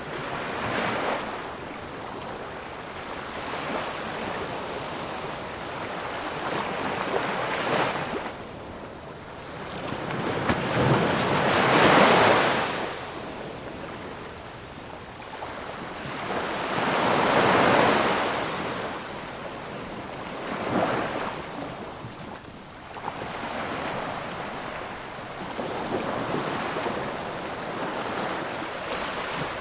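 Ocean waves breaking and washing on the shore, surging in and falling away every few seconds, the two biggest swells about twelve and eighteen seconds in, with some wind noise on the microphone.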